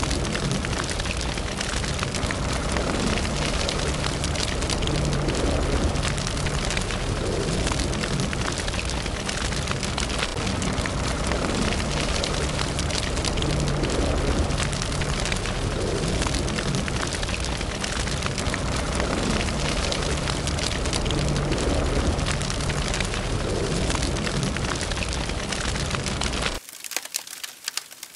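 Wood fire burning fast, a dense crackle over a low rushing of flames. Near the end it cuts to a quieter wood fire with separate crackles.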